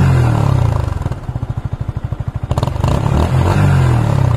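A Yamaha R15M's 155 cc single-cylinder engine, breathing through a homemade exhaust made from a spray can, is revved twice on the stand. It drops back from a rev to a pulsing idle about a second in, then rises again and holds until near the end.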